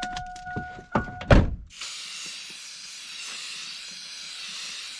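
A steady electronic chime with a few clicks, cut off by a loud thunk about a second and a half in; then a steady hiss of an aerosol can spraying primer onto bare metal spots on a tractor panel.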